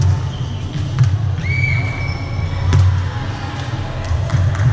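A volleyball struck twice, two sharp slaps about two seconds apart, over the steady low hum of a large hall. A high steady tone is held for over a second between the two hits.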